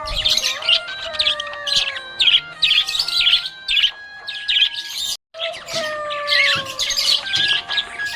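Budgerigar chirping and warbling in rapid, dense bursts of high chirps, with a brief break about five seconds in.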